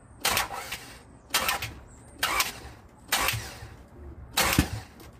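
Starter cranking a 2002 Honda Accord's 3.0 L V6 in five short bursts about a second apart, with the coils unplugged so the engine does not fire. Compression blows out the rag stuffed in cylinder 1's spark plug hole, the sign that the piston is coming up to top dead centre.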